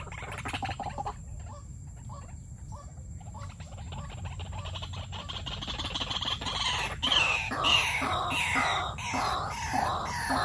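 White-breasted waterhens calling: faint scattered calls at first, then from about six seconds in a loud run of repeated harsh, falling calls, about two a second.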